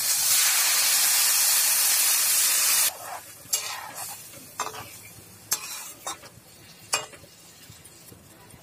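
Hot oil and fried masala sizzling loudly in a kadai as water is poured in. The sizzle cuts off suddenly about three seconds in, and a spatula then scrapes and knocks against the pan about six times as the gravy is stirred.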